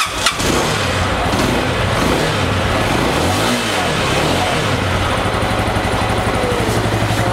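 Unique Tornado 150cc motorcycle's air-cooled single-overhead-cam engine starting, catching within the first half second. Its speed rises and falls for a few seconds, then it settles into a steady idle from about five seconds in.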